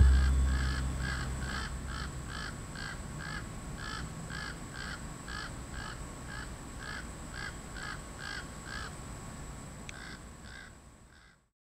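Common ravens giving a fast, even series of throaty caws, about two or three a second, that break off briefly near the end, resume for a few more calls, then fade out. A low music note dies away under the first couple of seconds.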